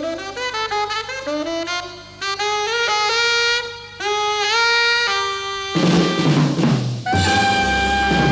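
Modern jazz combo recording: a saxophone plays fast, stepping runs over the rhythm section. About six seconds in a drum-kit crash of cymbals and drums breaks in, then a horn sustains a steady held note.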